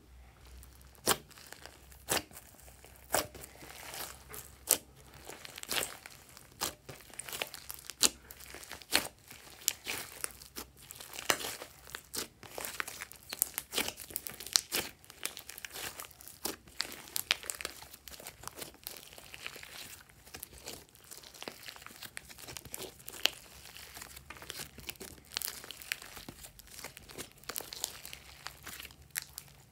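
Fluffy slime mixed with foam beads being squeezed, folded and stretched by hand, giving an irregular run of sharp sticky crackles and pops.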